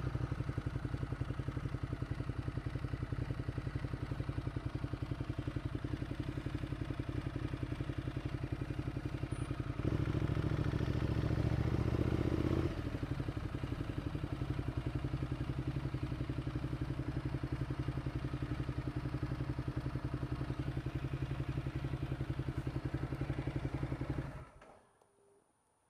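Ducati Multistrada 1200's L-twin engine running at low speed with a fast, even pulse. It gets louder for about three seconds near the middle, then cuts off suddenly near the end.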